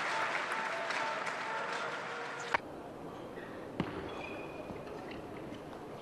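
Arena crowd applause that cuts off abruptly about halfway through. It gives way to a quieter table tennis hall where a couple of sharp clicks of the celluloid ball are heard.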